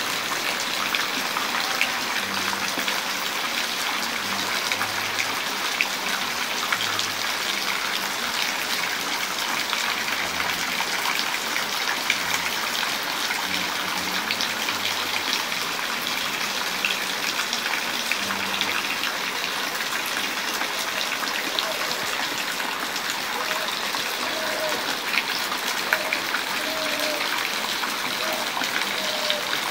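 Steady rain falling, a dense, even wash of drops with scattered sharper drop hits.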